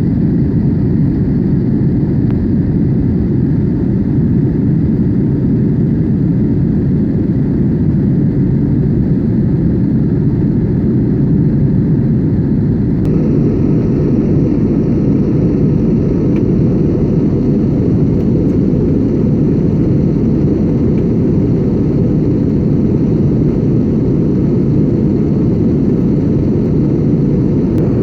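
Airbus A321neo's jet engines running with a steady, loud, low noise, the higher hiss shifting slightly about halfway through.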